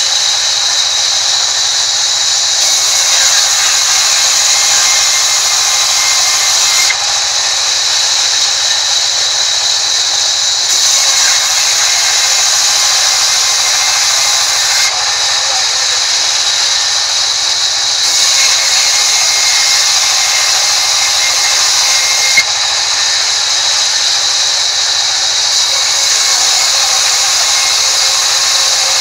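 Large sawmill band saw running and ripping a wooden plank: a steady high hiss of the blade in the wood over a constant high tone. The hiss brightens and eases in spells of a few seconds, with one sharp tick about three-quarters of the way through.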